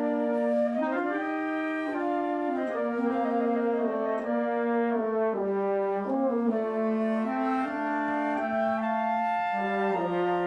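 A Marine Corps band plays a slow piece, led by brass with French horn prominent and woodwinds beneath. It moves through sustained chords that change about once a second.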